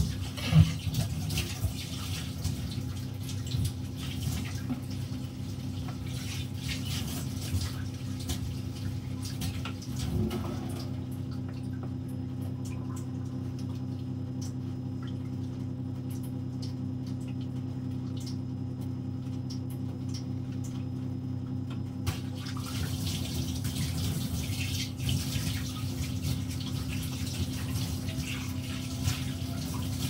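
Kitchen tap running into the sink while dishes are washed, with short clinks of utensils; the water stops about eleven seconds in and runs again after about ten seconds. A steady low hum continues underneath.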